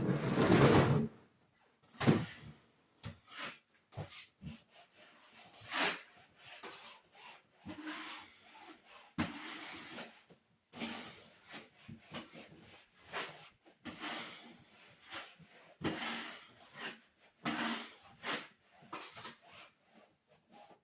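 Irregular rubbing and scraping with scattered knocks, as of surfaces being scrubbed and wiped, with one loud bump in the first second.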